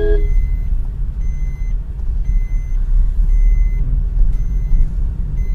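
Steady low rumble of a car's engine and road noise heard from inside the cabin while driving slowly, with faint high beeps that come and go.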